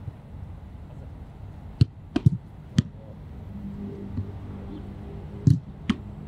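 Football drill: sharp thumps of the ball being struck by the server and slapping into a goalkeeper's gloves, several times. The loudest pair comes near the end, a strike followed under half a second later by the catch.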